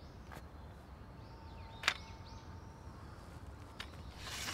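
Faint birds chirping over quiet outdoor ambience, with a few sharp clicks, the loudest about two seconds in. A rising swish builds near the end.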